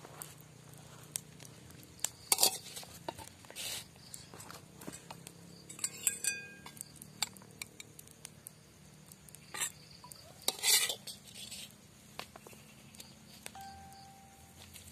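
Metal spatula scraping and tapping against a glass plate while cooked rice is dished out: scattered scrapes and clinks, a few with a brief ringing tone.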